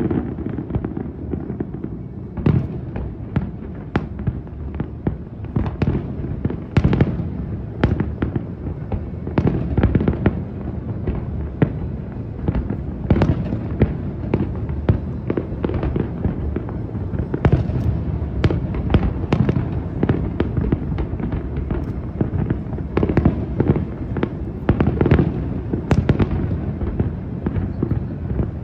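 Fireworks exploding continuously: a steady run of sharp bangs and crackles, one to three a second, over rolling low booms that echo on.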